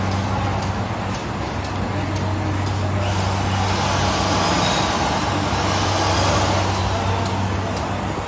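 Side-sealing bag-making machine running steadily: a constant low hum under a continuous wash of mechanical noise from its rollers and sealing head.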